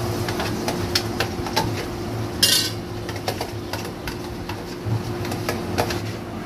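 A metal spoon clinking and scraping against a steel bowl and a steel karahi as yogurt is scraped into the pan. There are repeated short clinks, a louder scrape about two and a half seconds in, and a steady low hum underneath.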